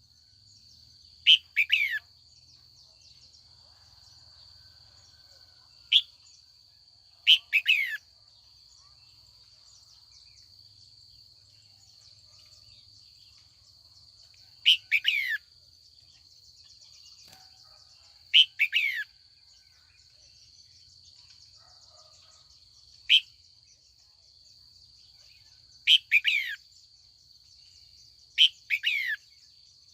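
Female red-whiskered bulbul calling, short calls every few seconds, most of them quick clusters of two or three falling notes. A steady faint high-pitched hum runs underneath.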